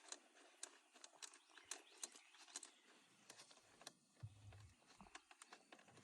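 Faint, irregular light clicks of a hand tool working a long T30 Torx bolt loose from a steering-wheel airbag, against near silence.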